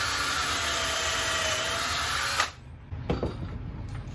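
Cordless drill running steadily as it bores a pocket hole through a plywood cabinet board held in a pocket-hole jig, then cutting off sharply about two and a half seconds in. A short knock follows about half a second later.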